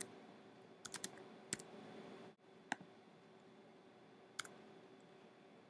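Sparse keystrokes on a computer keyboard: about six irregularly spaced clicks, three in quick succession about a second in, then single taps.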